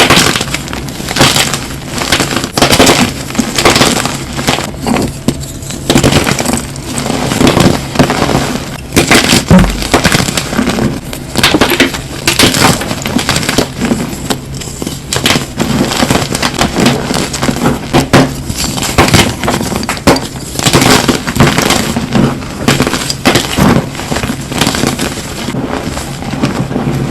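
Close-up crunching and crackling of brittle material being crushed: a dense, irregular run of sharp cracks with no real pause.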